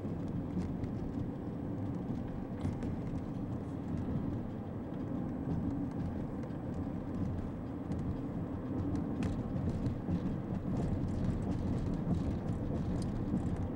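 Steady engine and road rumble inside the cabin of a moving car, with a few faint clicks.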